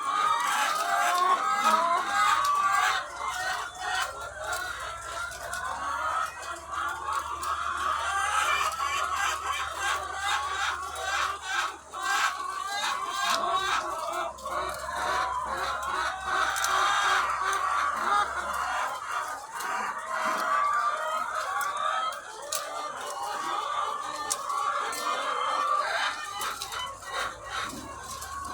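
A large flock of egg-laying hens clucking and calling all at once, a dense, continuous din of overlapping voices with scattered sharp clicks.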